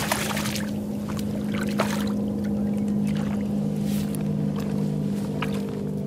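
A fish splashes at the surface as it is let go from the hand, near the start, and a few small splashes and drips follow. A steady low hum runs underneath.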